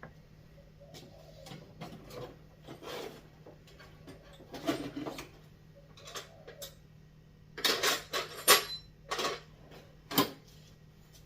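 Scattered clicks, clunks and rattles as tools and a battery chainsaw are handled. The loudest is a quick cluster of sharp clacks about eight seconds in, with another click near ten seconds, over a faint steady hum.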